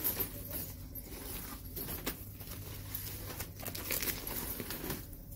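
Secondhand handbags being lifted and shifted on a pile over plastic sheeting: irregular rustling and crinkling of plastic and fabric with scattered soft knocks.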